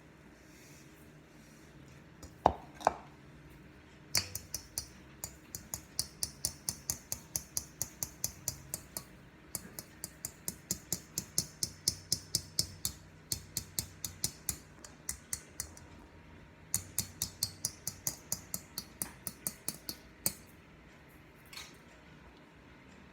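Hand sifter being worked to sift sugar: rapid clicking, about three clicks a second, in three long runs with short pauses between. Two sharper clinks come shortly before the clicking starts.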